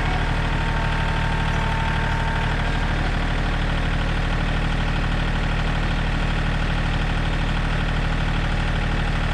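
John Deere tractor engine running steadily at low revs, with an even, unchanging drone.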